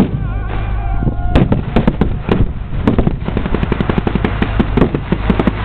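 Rapid blank gunfire from First World War reenactment rifles and machine guns: many sharp, overlapping shots a second, growing dense about a second and a half in. A short wavering pitched sound comes just before the firing thickens.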